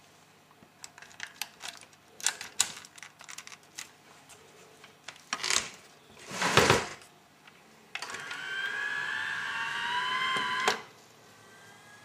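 Grundig BK 3000 VCR mechanism working: a run of small clicks, two brief swishes, then a motor whine lasting about three seconds that rises slightly in pitch and cuts off suddenly. The machine has a bad capacitor.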